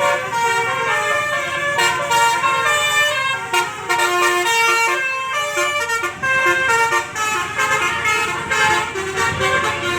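Basuri bus horn playing a melody: several steady notes sounding together, changing in quick steps like a tune.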